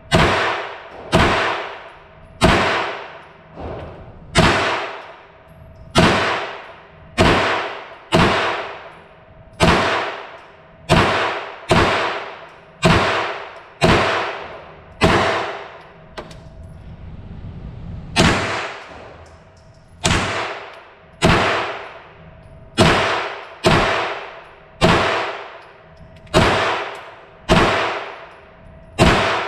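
Aero Precision EPC-9 9mm carbine fired semi-automatically, about one shot a second, each shot echoing off the concrete of an indoor range. There is a pause of about three seconds past the middle, then the steady fire resumes.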